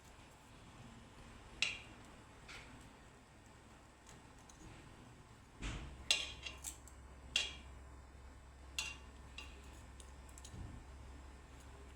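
Scattered light clinks and knocks of cooking pots and utensils being handled, about ten in all and sparser at first. A dull thump about halfway through, after which a low hum runs underneath.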